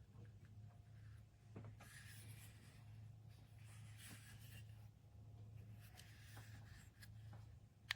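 Near silence: a faint low hum with soft rustling and scraping handling noises, and a sharp click near the end.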